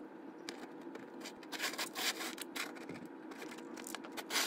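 Faint scraping and a few small clicks of tiny metal parts being handled as carbon brushes and their springs are fitted back into a small model-locomotive electric motor.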